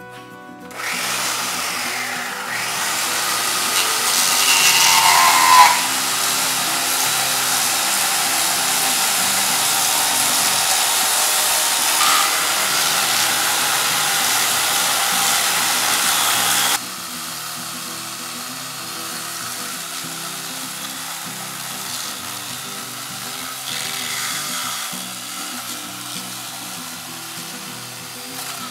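Worx electric chainsaw running and cutting a chase into the foam of an insulated concrete form wall. It starts about a second in and drops sharply in level about 17 seconds in, then keeps cutting more quietly.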